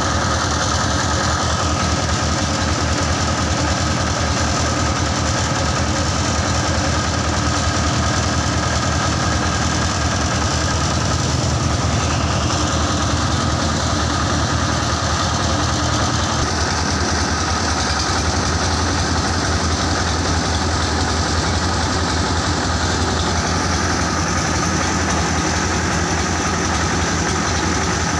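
Engine-driven mobile rice hulling machine running steadily, a constant mechanical drone with an even engine pulse as grain is milled.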